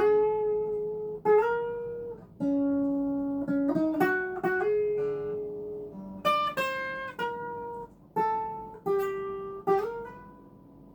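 Legacy LP 300 Les Paul-style electric guitar on its bridge pickup with a clean tone, playing a slow melodic phrase of picked single notes and double-stops. A few notes slide up in pitch, each note rings out, and the last one dies away near the end.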